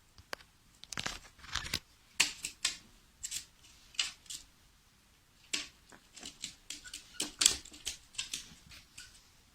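A parrot eating grapes: irregular clicks and crunching bites from its beak, coming in uneven clusters with short pauses between.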